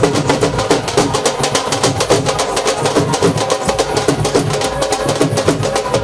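A group of dhol drums and smaller stick-beaten drums playing together in a fast, dense, driving rhythm.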